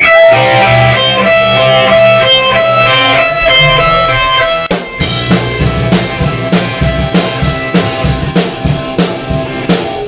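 Live punk rock band playing loud: electric guitar chords ring out alone at first, then the drum kit comes in with a steady beat about five seconds in.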